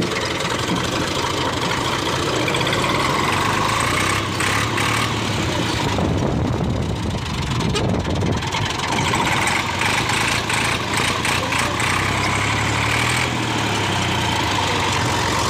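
Tractor engine running steadily as the tractor is driven along a dirt track, its pitch drifting slightly up and down, with some short clattering in the middle.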